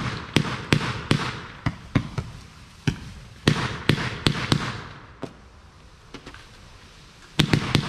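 Fireworks going off: a rapid series of sharp bangs, each trailed by a fading hiss. After about five seconds they thin out to a couple of small pops, then a fresh volley of bangs starts near the end.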